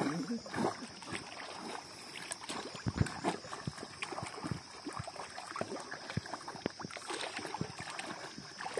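Feet wading through a shallow stream: irregular sloshes and small splashes of water around the legs, with one louder splash about three seconds in.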